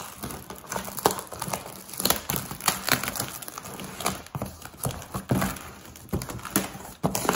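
Cardboard box being pulled open by hand: stiff cardboard flaps scraping and rustling while packing tape and plastic wrap crinkle, in a run of irregular crackles and light knocks.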